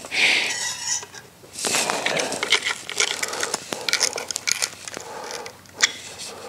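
Hand tools clinking and scraping on the metal parts of a Ford Model T clutch assembly as its clutch finger adjusting screws are tightened. It starts with a scrape, goes on as a run of small metallic clicks and clinks, and ends in one sharp click.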